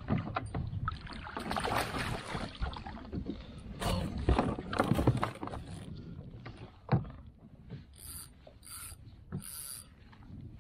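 Water splashing and gear knocking against a fishing kayak while a hooked snapper is brought alongside and netted. A sharp knock comes about seven seconds in, then a few short, high hissing bursts near the end.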